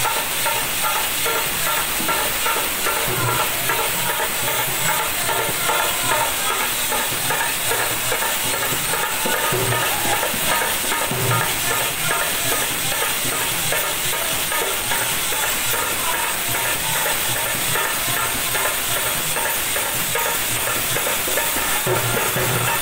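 Bhajan accompaniment: large brass hand cymbals clashed continuously in a dense, steady shimmer, over the irregular beats of a two-headed barrel drum played by hand.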